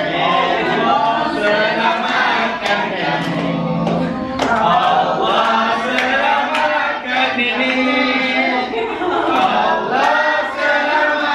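A group of family voices singing a birthday song together, with hands clapping along.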